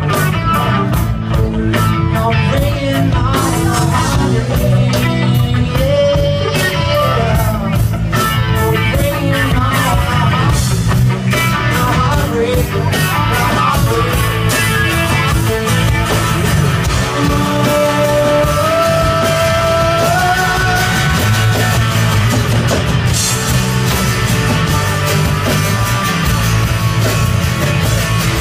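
Live rock band playing through stage PA speakers, with guitars over bass and drums and a guitar melody that slides up in pitch now and then.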